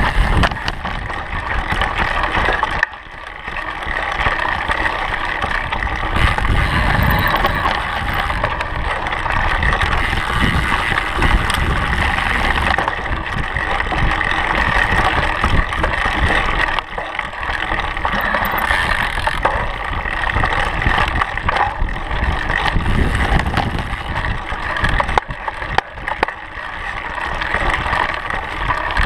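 A mountain bike ridden along a dirt trail: wind rushing over the microphone, with the rolling and rattling of the tyres and bike over the ground. The noise drops briefly a few times.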